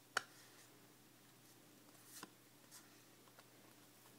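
Yu-Gi-Oh trading cards handled in the hands as they are moved from the front of the fan to the back: a sharp card snap just after the start, then softer sliding rustles about two seconds in.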